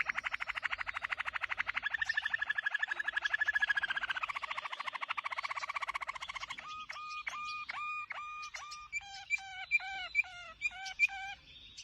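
Caged bird singing: a long rapid trill that shifts in pitch, then breaks into a run of separate, repeated whistled notes, about two or three a second.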